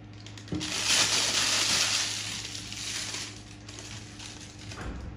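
Disposable plastic piping bag crinkling and rustling as it is handled and filled with thick nut dough, starting about half a second in and fading by about three and a half seconds.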